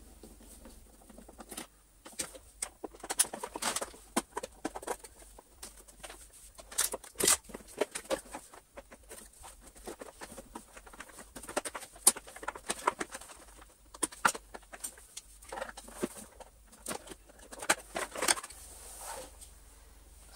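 Irregular clicks, taps and rattles of a Miele C3 vacuum cleaner's plastic housing being unscrewed and pulled apart, a screwdriver working its screws.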